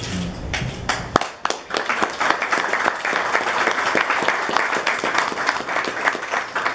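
A few people applauding. A handful of separate claps comes first, then the clapping fills in to a steady patter about a second and a half in.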